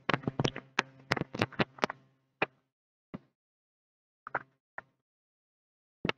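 Keys being pressed: a quick run of sharp clicks for about two seconds over a faint low hum, then single clicks about once a second, as a division is keyed in.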